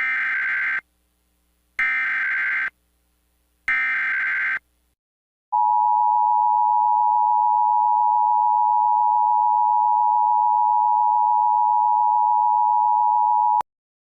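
Emergency Alert System SAME header: three short bursts of warbling data tones about two seconds apart, followed by the steady two-tone EAS attention signal held for about eight seconds, which cuts off sharply near the end.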